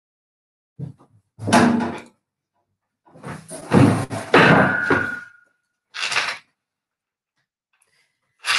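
Bumps and rustling in three short bursts, with a brief squeak near the end of the second. This is handling and movement noise from a presenter settling in at a laptop, picked up by a conference microphone that cuts to silence between the sounds.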